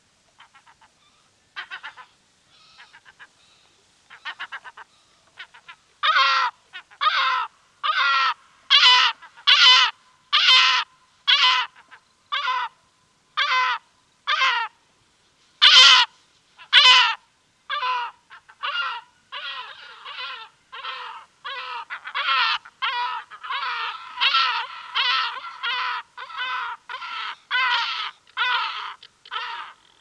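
Two southern black-backed gulls (kelp gulls) giving repeated short anxiety calls, heard close up. A few faint calls at first, then loud calls about one a second from about six seconds in, coming faster and overlapping in the second half.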